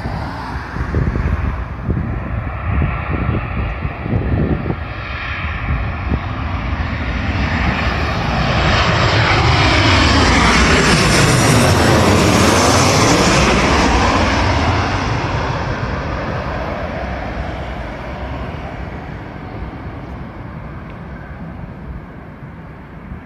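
Boeing 737 jet airliner on landing approach with its gear down, passing low overhead: the jet engine noise swells, is loudest about ten to fourteen seconds in with a sweeping, phasing change of pitch as it goes over, then fades away.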